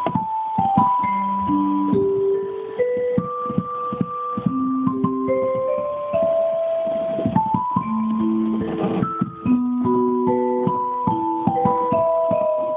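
Digital piano played with its vibraphone voice: a slow, gentle melody of held notes over lower accompanying notes.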